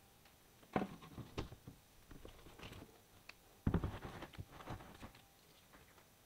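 Plastic fermenter bucket being lidded and handled: a string of hollow plastic knocks and clicks as the lid is pressed on, the loudest cluster about three and a half seconds in.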